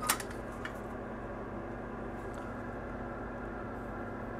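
Steady electrical hum of workbench equipment, with a light click just after the start and a fainter tick about two-thirds of a second in.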